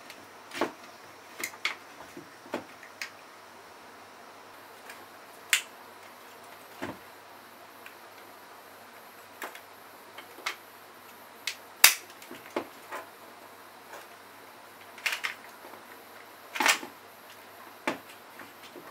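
Plastic clips and housing of a COM2003 steering column switch module clicking and clacking as it is prised apart by hand. About fifteen scattered, sharp clicks, the loudest about two-thirds of the way through.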